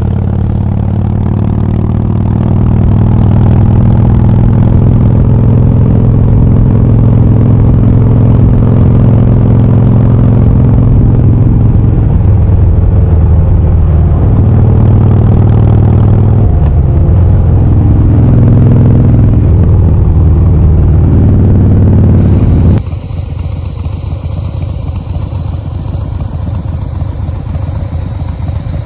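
Harley-Davidson Breakout's V-twin engine running under way, heard from the rider's seat, its pitch dipping and rising several times through the middle. Near the end the sound drops sharply in loudness to the bike's engine idling with a quick, pulsing beat.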